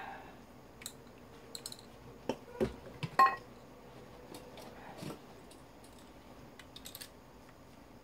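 Handling noise as metal fan-motor parts and tools are picked up and moved: scattered clicks and knocks, with a louder metal clank that rings briefly about three seconds in.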